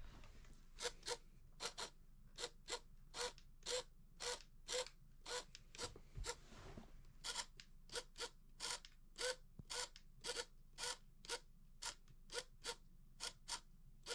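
Small hobby servo swinging a cardboard RC car rear wing up and down, giving short buzzes about twice a second, often in quick pairs, with a brief pause just past the middle.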